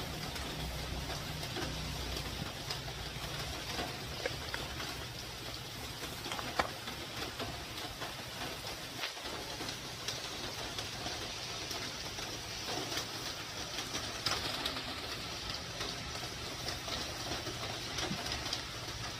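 Light clicks and rubbing of plastic tube fittings being handled, with one sharper knock about six and a half seconds in, over a steady background with a bird calling. A low hum fades out in the first couple of seconds.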